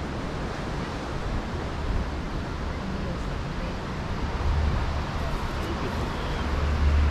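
Steady wash of surf breaking on a beach, mixed with wind noise on the microphone, with a low rumble swelling near the end.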